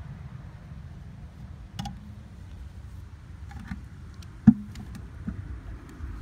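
Clear plastic container handled and tipped over onto concrete: a few light clicks and knocks, the loudest a single sharp knock about four and a half seconds in, over a low steady rumble.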